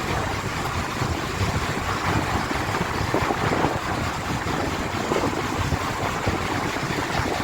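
Sportfishing boat's engine running steadily, with a continuous rushing noise over it.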